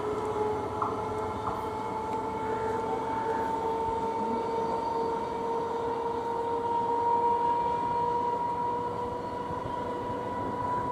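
Electric multiple unit local train running, with a steady two-note whine from its traction motors that rises slowly in pitch over a low running rumble.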